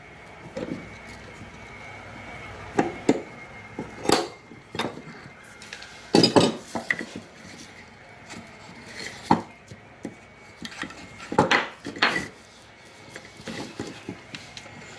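Clamps being set and tightened on a glued wooden toy: a series of irregular clacks and knocks of clamp metal and wood, the loudest about six seconds in and again around eleven and twelve seconds.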